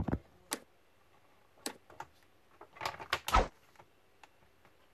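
Hard plastic of a laptop's bottom cover clacking and clicking as it is set down and pressed into place by hand: a few sharp knocks in the first two seconds, then a quick cluster of louder ones about three seconds in.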